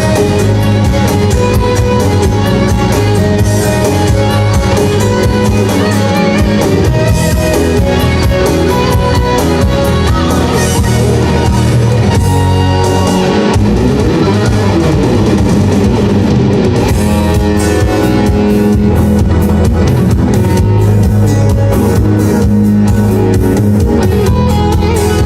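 Instrumental rock played by a band: electric guitar shredding fast lead runs over a drum kit.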